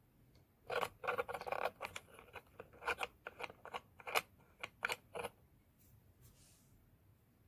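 3D-printed resin track links of a model tank clicking and rattling as a small N20 gear motor drives the track: a run of irregular sharp clicks that stops about five seconds in.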